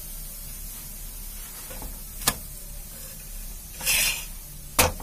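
Radish paratha frying on a hot flat pan with a faint steady sizzle. A metal spatula clicks sharply against the pan about two seconds in and again near the end, and a brief hiss rises about four seconds in as the spatula presses the bread.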